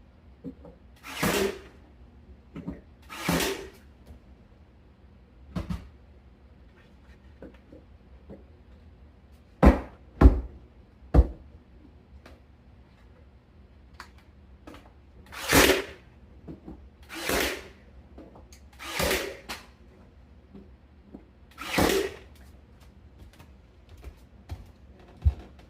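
Ryobi battery-powered brad nailer firing into stair trim, about six shots. Each shot is a short burst about half a second long: two near the start, then four more spaced a second or two apart later on. A few sharp knocks fall in between, around the middle and near the end.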